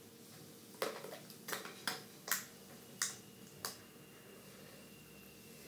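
Stretchy slime being handled over a plastic bowl, giving about six sharp little clicks and pops spread over some three seconds.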